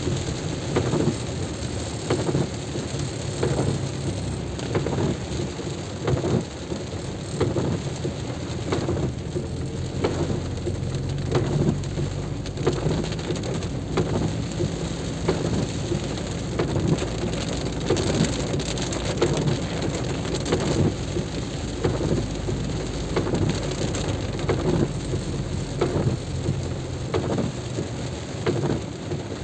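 Heavy rain, drops pattering in quick irregular taps over a steady low rumble.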